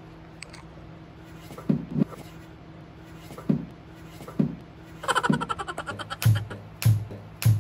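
Several short, irregular knocks on a wooden tabletop; the last three are heavier thumps. A brief buzzing rattle comes about five seconds in.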